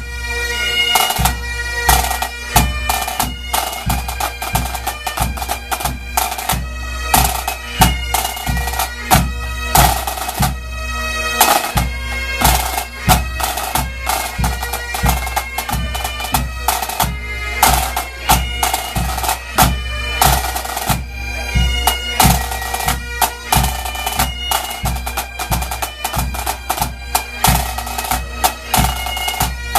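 Pipe band playing: bagpipes sounding a melody over their steady drone, with snare and bass drums keeping a regular beat.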